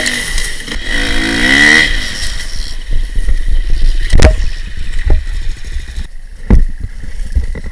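Dirt bike engine revving and falling off as the bike rides through brush, followed by sharp knocks and clatter, the loudest about four seconds in, as the bike goes down on the trail.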